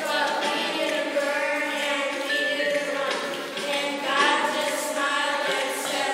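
A children's choir singing a song together, holding long notes.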